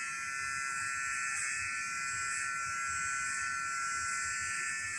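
Corded electric hair clipper buzzing steadily as it cuts a child's short hair.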